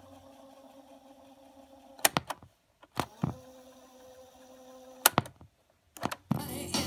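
Cassette deck of a General Electric 3-5286A boombox winding tape at speed with a steady motor hum, its mechanical piano-key transport buttons clunking several times as the tape is stopped, rewound and stopped again. Near the end Play is pressed and music starts from the speakers.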